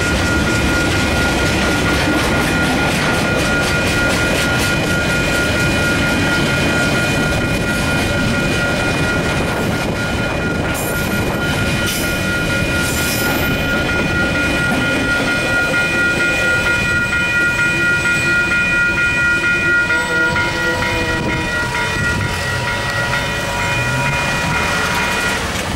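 A long freight train of container wagons rolls through a level crossing, its wheels clicking over the rail joints. The crossing's warning bells ring steadily over it and stop just before the end.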